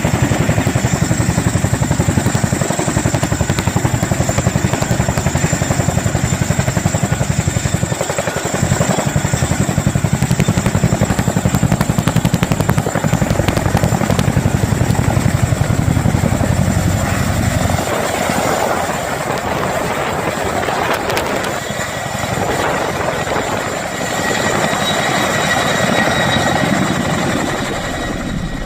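CH-47D Chinook tandem-rotor helicopter running close by: rapid rotor chop over a steady high whine. About 18 seconds in, the heavy low thudding drops away and the sound thins.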